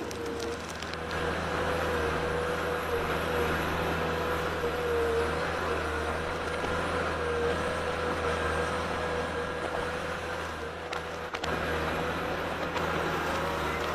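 A machine's engine running steadily at an even speed, with a steady whine above its low hum.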